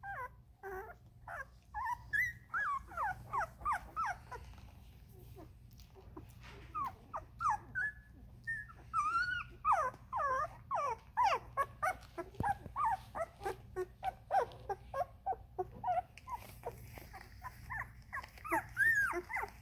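Vizsla puppies about two weeks old whimpering in many short, quick calls that slide up and down in pitch, sometimes several at once, with brief lulls a quarter of the way in and near the end.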